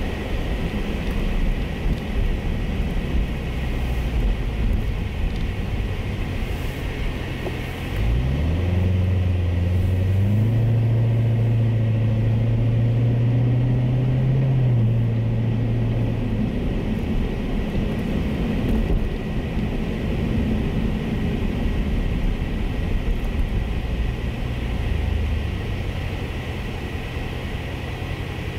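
The 2019 Corvette Z06's supercharged 6.2-litre V8, heard from inside the cabin while driving, over steady road noise. About eight seconds in, the engine note climbs sharply as the car accelerates and keeps rising slowly for several seconds. It eases off again about sixteen seconds in.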